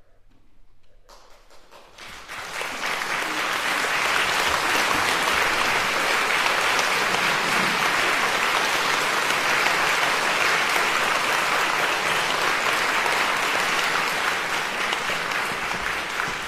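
Concert-hall audience applauding at the end of a piece: after a brief hush, the clapping starts about a second in, builds over the next couple of seconds and then holds steady.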